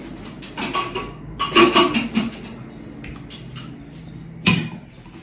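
Tableware being handled while food is served: soft clinks and scrapes, with one sharp knock of dish or utensil about four and a half seconds in.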